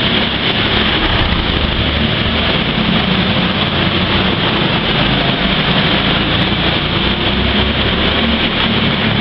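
Go-kart engines running steadily as karts lap an indoor track, a continuous loud engine drone in the enclosed hall.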